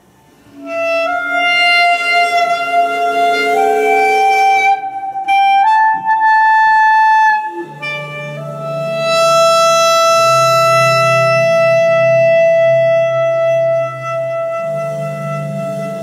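Clarinet playing long held notes that step upward in pitch over the first seven seconds, then holding one steady note over a low sustained drone.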